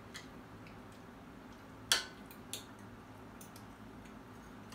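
Cutlery clicking against plates during a meal: a few light taps and one sharper clink about two seconds in, followed by a softer one.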